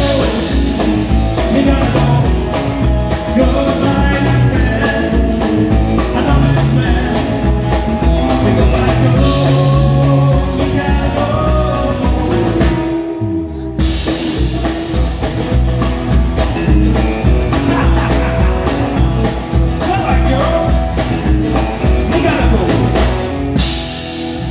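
Live country-rock band playing: acoustic and electric guitars, bass guitar and a drum kit, with a short break in the beat about halfway through.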